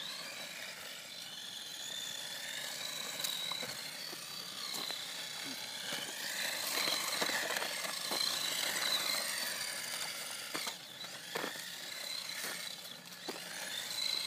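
Small electric RC car, a 1/18 Latrax Rally running on a 2-cell lipo, its motor and gearbox giving a high whine that rises and falls with the throttle as it drifts on tape-wrapped tyres. A few sharp ticks come in the second half.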